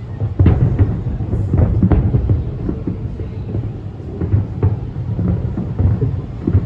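Fireworks exploding in a dense barrage: many sharp bangs over a continuous low rumble, with the loudest bangs about half a second and two seconds in.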